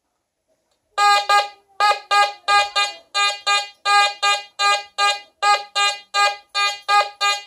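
Nokta Fors Core metal detector beeping its target tone, starting about a second in: short beeps at one steady pitch, about three a second and often in pairs. It is the detector answering an 1865 two-cent piece passed over its coil, read as target ID 84.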